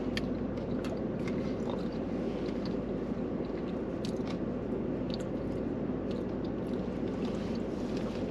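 Close-up chewing and small mouth noises from someone eating fries dipped in gravy, with scattered short clicks over a steady low hum.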